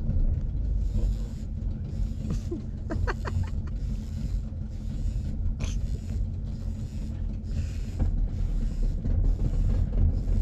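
Fishing reel being cranked during slow jigging: a rhythmic whirring creak repeating about one and a half times a second, over a steady low rumble.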